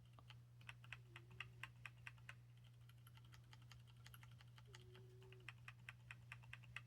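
Faint typing on a mechanical keyboard fitted with Cherry MX2A Ergo Clear tactile switches: soft, quick keystrokes in two runs, very quiet.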